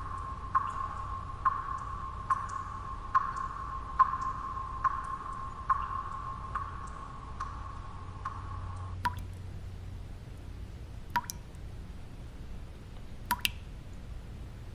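Water drops falling at a steady pace, a little more than one a second, each with a short ringing tone, over a low steady background noise. About nine seconds in the regular dripping stops and only a few scattered drops follow.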